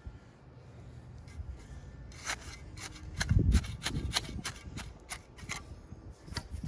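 A hand tool scraping and stabbing in gritty soil and concrete mix around a flagpole sleeve in the hole. A quick run of scratchy strokes, about three a second, starts about two seconds in, with a dull thump among them.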